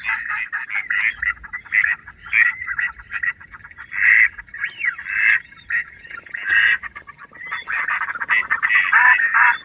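Ducks quacking in a dense, rapid run of calls, one quack after another with hardly a pause.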